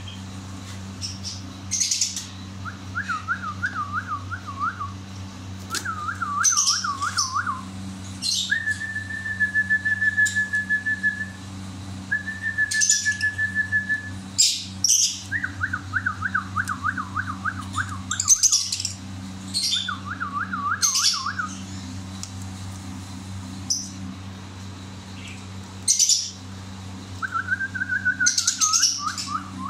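Caged lovebirds calling: sharp high chirps scattered between trains of quick whistled notes, about five a second, and one held whistle of about three seconds, over a steady low hum.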